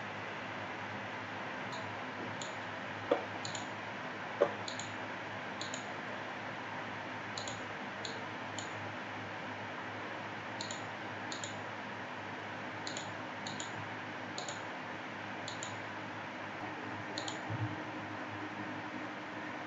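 Computer mouse clicking: short, sharp clicks at irregular intervals, about one a second, with two louder clicks about three and four and a half seconds in, over a steady background hiss.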